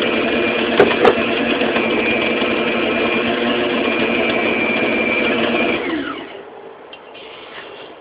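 Electric stand mixer running steadily as its dough hook kneads pizza dough, with two short knocks about a second in. About six seconds in the motor is switched off and winds down, falling in pitch.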